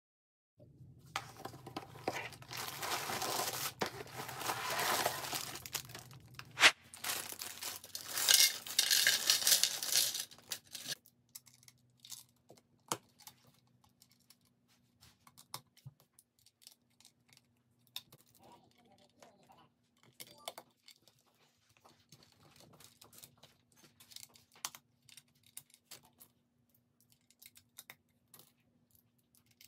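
Packaging torn open and crinkled, loud and continuous for about the first ten seconds. Then comes a sparse run of small plastic clicks and clacks as LEGO bricks are handled and pressed together.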